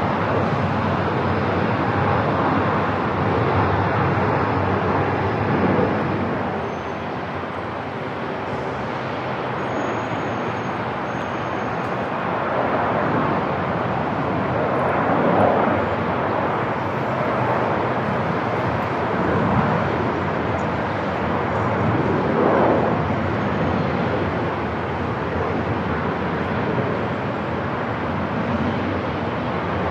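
Airport ambience: a steady wash of noise with aircraft engine sound, swelling gently a few times.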